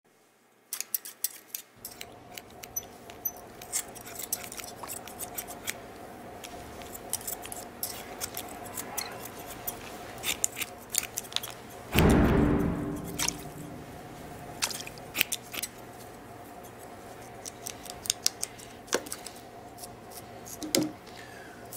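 Scissors snipping at a beard in a run of sharp, irregular clicks over a steady low hum. About twelve seconds in, a heavy boom, the loudest sound here, fades away over a second or so.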